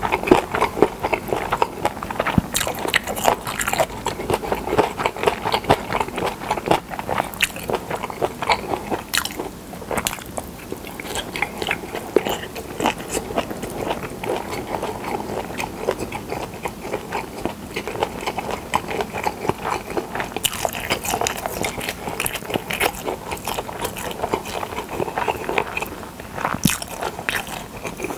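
Close-miked chewing of pressed boiled pork slices (pyeonyuk), a dense run of rapid wet mouth clicks that thins out briefly twice.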